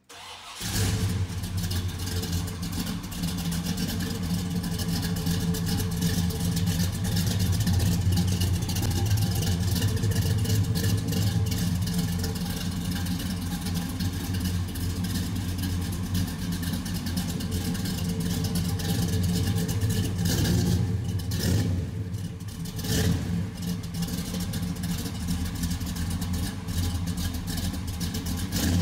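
Car engine and exhaust running steadily with a deep, even note, dipping briefly twice about 21 and 23 seconds in.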